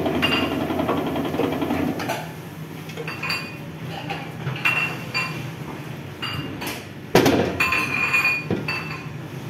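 Electric dough sheeter running, stopping about two seconds in. Then scattered clinks of kitchen metalware and one loud thump about seven seconds in.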